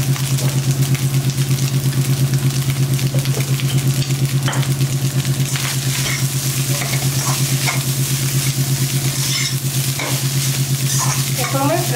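A metal slotted spatula stirring and scraping fried rice around a nonstick pan over the heat, with sizzling and sharp scrapes against the pan. A steady low hum, pulsing a few times a second, runs underneath, and is the loudest sound.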